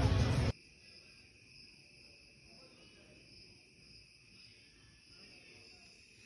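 Faint, steady chorus of crickets chirping at night. It comes in after loud voices and engine noise cut off abruptly about half a second in.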